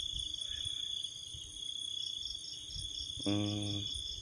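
Night insects, crickets, singing: one continuous high trill under a higher pulsed chirp that repeats about five times a second. About three seconds in, a brief low steady hum sounds over them.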